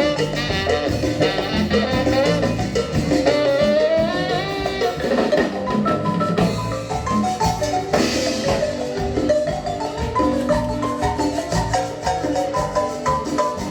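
Chiapas marimba ensemble playing a lively tune: a rapid run of mallet notes on the wooden bars over a low bass line.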